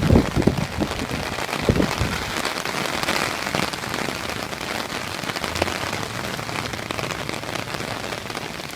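Heavy rain falling and spattering on hard surfaces, a steady hiss full of tiny drop ticks. A few dull thumps come in the first two seconds.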